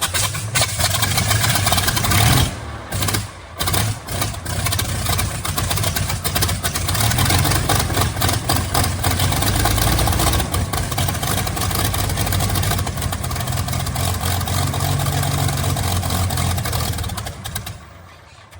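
Allison V-1710 liquid-cooled V12 aero engine being started on a test stand: loud, steady engine noise with a couple of brief dips a few seconds in, fading away near the end.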